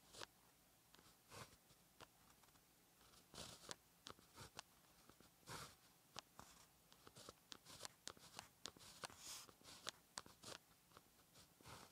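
Faint scratching and ticking of a fine-tipped ink pen writing Chinese characters on paper: a quick, irregular run of short strokes and taps of the tip, with a few longer scratches.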